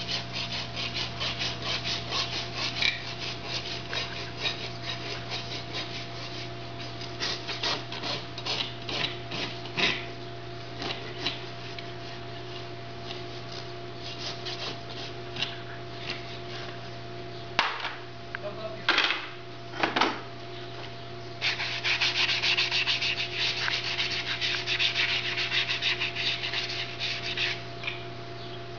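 Farrier's rasp filing a horse's hoof in rapid back-and-forth scraping strokes, easing off midway, where a few louder knocks come, then a second dense run of strokes near the end. A steady low hum runs underneath.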